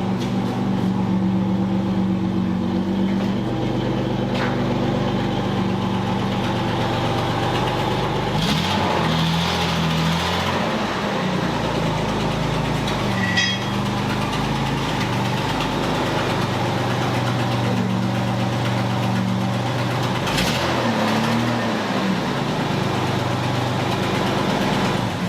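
1976 Datsun 280Z's L28 inline-six engine running steadily at idle, its pitch shifting briefly about eight seconds in and again near the end. The engine has a bad exhaust leak at the first cylinder, where the exhaust manifold gasket has fallen off.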